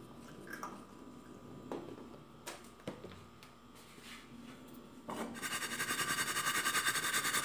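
A few faint clicks of kitchen handling, then about five seconds in a loud, rapid, rhythmic rasping scrape of pan or utensil starts suddenly and keeps going.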